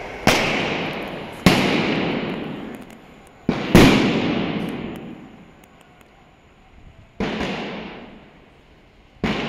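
Firecrackers going off: about six sharp, loud bangs, two of them close together just under four seconds in. Each bang is followed by a long echo that dies away under the platform roof.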